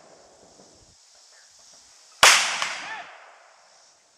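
A single rifle shot about two seconds in, a sharp crack followed by an echo that dies away over about a second. The first second holds the fading echo of the shot before.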